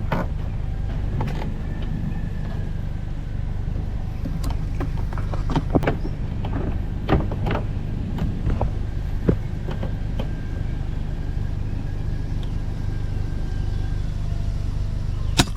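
Steady low rumble of an idling vehicle with scattered small clicks. Near the end comes a single sharp crack: an FX Impact M3 PCP air rifle firing.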